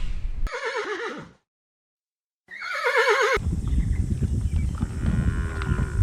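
Horse whinnying twice, each a short quavering call that falls in pitch, with a second of dead silence between them; then a low rumbling noise.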